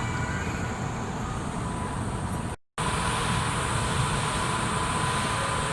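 Steady urban traffic and station background noise, a low rumble with hiss. It cuts out briefly a little over two and a half seconds in, then resumes with a thin steady tone in it.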